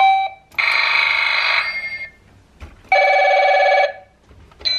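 Electronic ring tone from a Pocoyo toy telephone, a trilling, high-pitched ring sounding twice, each ring about a second long.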